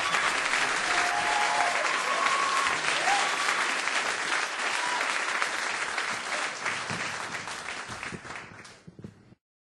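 Audience applauding, with a few voices calling out in the first few seconds. The applause fades and cuts off to silence about nine seconds in.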